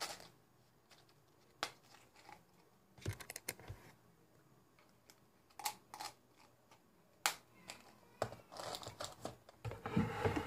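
Irregular light clicks and taps from hands handling a small object close to the microphone, with a busier rustle of handling near the end.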